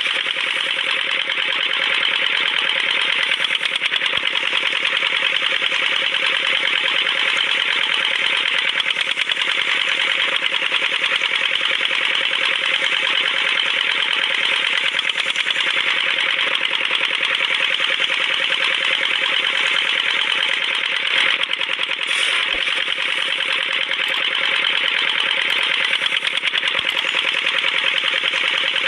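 Small motor of a miniature DIY tractor running steadily with a fast, even buzzing chatter.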